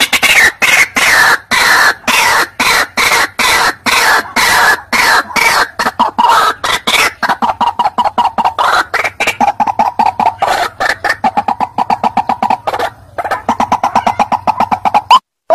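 White-breasted waterhen (ruak-ruak) calling: a long run of rapid, harsh repeated notes, several a second, sliding down in pitch and then holding steady, with a brief break about two-thirds of the way through. Right at the end it cuts to spaced single rising notes.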